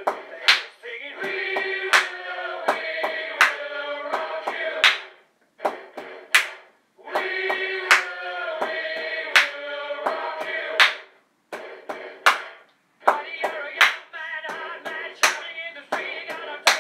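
A song with singing that runs in phrases with short breaks, over it sharp hand slaps on a dog's body played like bongos, with a few hand claps. The slaps are the loudest sounds.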